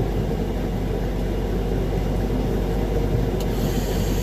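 Heavy diesel engine running steadily at a concrete line-pump pour. Near the end there is a click, and then a hiss starts.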